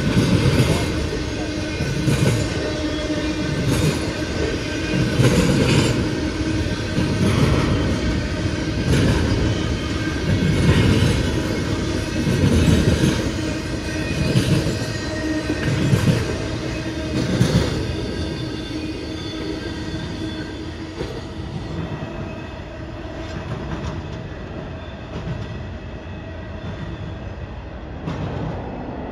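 CSX freight train rolling past, its wheels clacking over rail joints in an even rhythm, about one clack every two seconds, over a steady rumble and a faint wheel squeal. The clacks fade and the sound grows quieter after about eighteen seconds.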